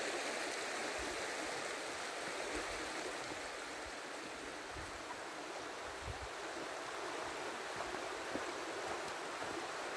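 Shallow, rocky forest stream running steadily over stones and riffles.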